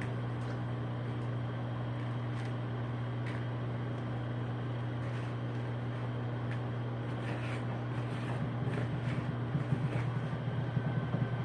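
Microwave oven running with a steady electrical hum while heating a tub of chocolate frosting at half power. Faint clicks sound through it, with more clicking and rustling near the end.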